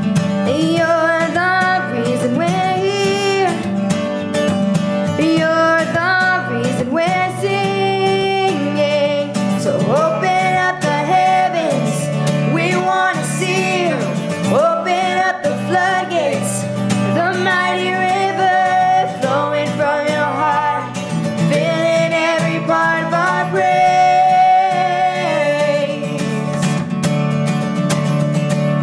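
A woman singing a worship song with guitar accompaniment. Her voice slides and bends through long held lines without clear words.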